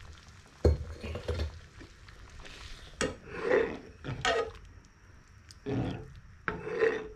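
Steel ladle stirring a watery dal sambar in a non-stick pan, scraping and clinking against the pan in several separate strokes about a second apart. A dull knock comes shortly before the stirring.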